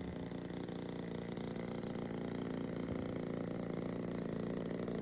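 DLE 20 single-cylinder two-stroke gas engine of an RC model airplane running steadily at an even speed.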